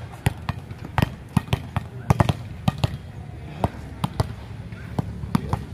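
Volleyballs being struck by hand and bouncing on a concrete court: a string of sharp slaps and thuds at irregular intervals, two or three a second.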